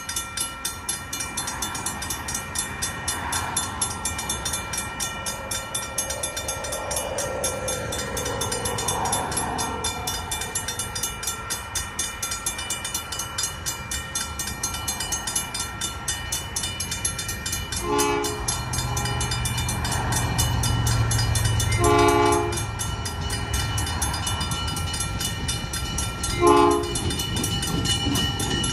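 Napa Valley Wine Train diesel locomotive passing, sounding its horn three times, short, longer, short, more than halfway through. Under it runs a rapid even clicking, and a low engine drone swells around the first two horn blasts.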